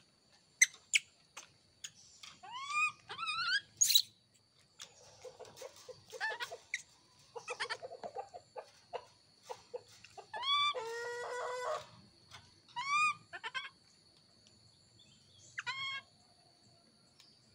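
Baby monkeys calling: a string of short, high-pitched cries, each rising and falling, with one longer cry about eleven seconds in. A few sharp clicks come near the start.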